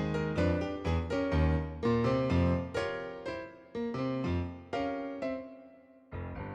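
Background music: piano notes played one after another, a run that thins and fades about six seconds in before new notes begin.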